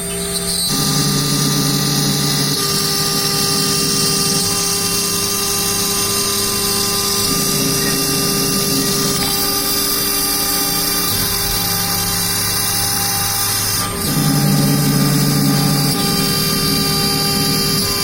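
CNC router spindle running at high speed and cutting MDF, a steady high whine, under a lower motor hum that changes pitch every couple of seconds as the machine's movement changes, with a brief dip in level a little before the end.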